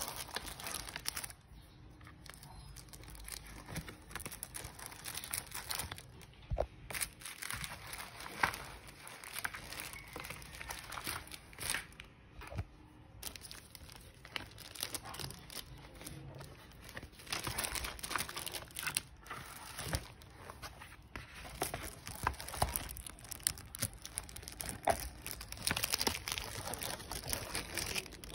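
Plastic shrink wrap crinkling and cardboard rustling as a painting kit is handled and pulled from its box, in irregular bursts that grow busier near the end.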